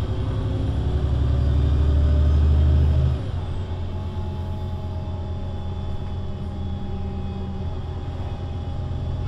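Diesel engine of a VDL Citea LLE 120 city bus pulling under load, its deep rumble growing louder for about three seconds and then dropping off suddenly. It then runs on more quietly and evenly, with a steady thin whine over the rumble.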